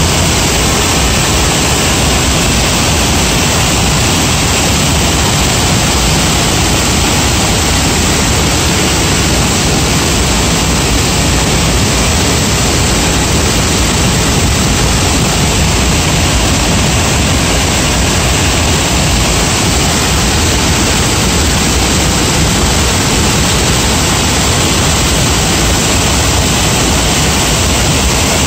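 Flooded river rushing in muddy rapids over rocks: a loud, steady rush of floodwater.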